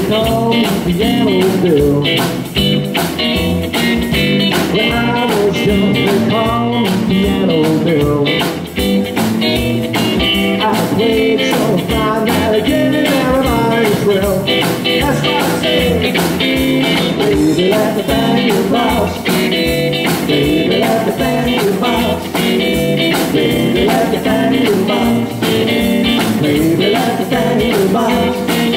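A live rockabilly trio playing: hollow-body electric guitar, upright double bass and drum kit, with a steady driving beat.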